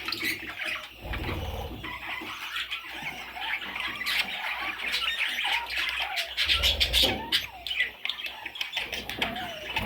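Pet budgerigars chirping and chattering continuously in rapid, high warbles and short squeaky glides, with a couple of brief low rumbles.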